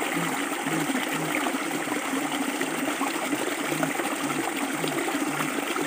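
Steady rush of a shallow rocky stream, with short low pitched notes repeating about twice a second underneath.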